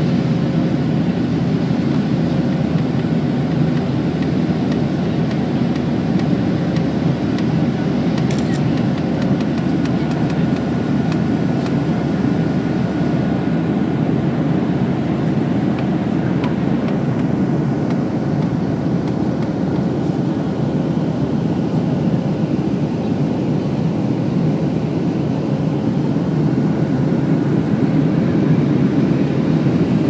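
Steady engine and airflow noise heard inside the cabin of a Boeing 737-800 climbing after takeoff, from its CFM56-7B turbofans, with a faint steady hum tone under it.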